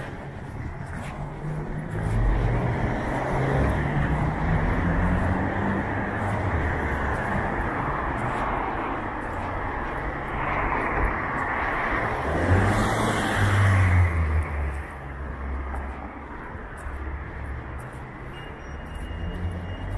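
Road traffic on a town-centre street: cars running past in a steady rumble, with one passing close about two-thirds of the way through.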